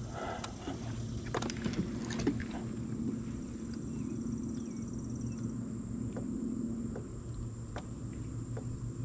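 Knocks and taps against the hull of a small plastic fishing boat as it is shifted and turned, mostly in the first few seconds, over a steady low hum. A few lighter taps come later.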